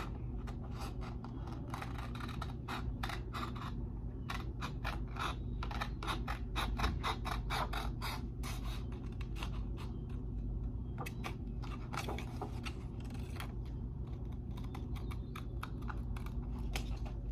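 Scissors cutting a strip from a sheet of paper: a long run of quick snips, dense for the first ten seconds or so and sparser after that, over a steady low hum.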